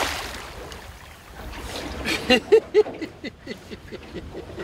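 Water splashing at the surface as a hooked halibut thrashes beside the boat, fading over the first second. About two seconds in come a few short bursts of laughter.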